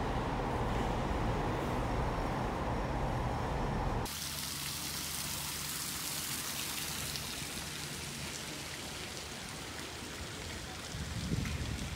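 A steady low rumble of indoor ambience, which cuts off suddenly about four seconds in and gives way to the steady splash of a fountain's water spilling over stepped stone blocks into a pool.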